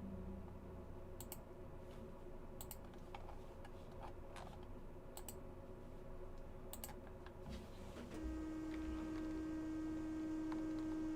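Scattered computer keyboard and mouse clicks. About eight seconds in, a steady low hum starts and keeps going.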